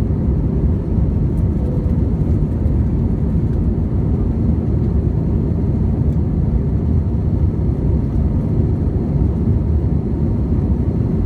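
Airbus A321 jet airliner heard from inside the cabin during takeoff: a steady, even low rumble of engine and airflow noise.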